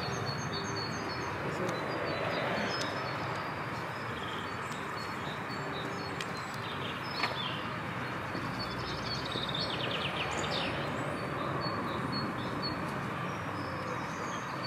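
Outdoor ambience: a steady background murmur with birds chirping on and off, including a quick trill about ten seconds in, and a single sharp click about seven seconds in.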